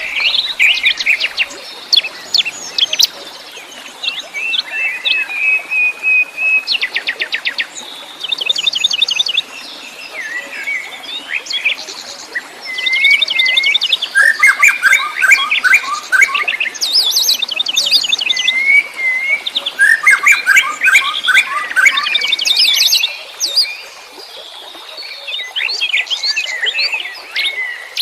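Several wild songbirds chirping and singing at once, a dense mix of rapid trills, short rising and falling whistles and quick chirps that comes in busy bursts.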